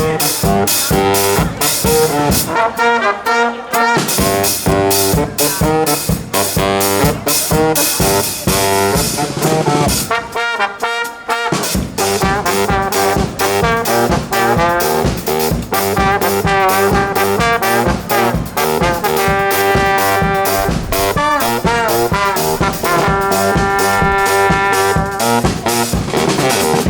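Live brass band playing an upbeat instrumental number: trumpets and trombones over a drum kit keeping a steady beat. The bass and drums drop out briefly twice, about three seconds in and again about ten seconds in.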